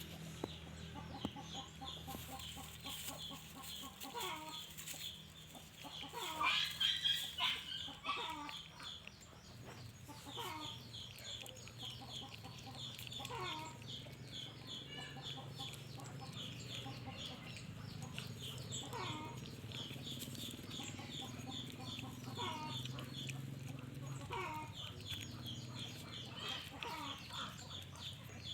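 Chickens clucking, with many short high peeps all through and a louder run of calls about six to eight seconds in.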